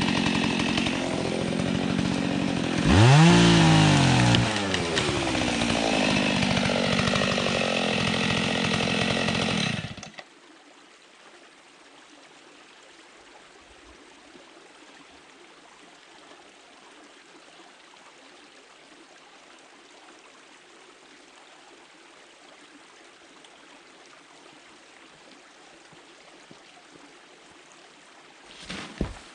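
Husqvarna 61 two-stroke chainsaw running at full throttle, revving up sharply about three seconds in (its loudest point), then cutting off abruptly about ten seconds in. A faint steady hiss remains, with a brief noise near the end.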